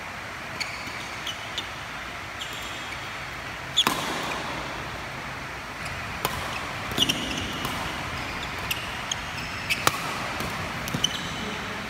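Badminton rally: sharp racket-on-shuttlecock hits every second or so, the loudest about four seconds in and near ten seconds, with short squeaks of court shoes on the floor over a steady background hum of the hall.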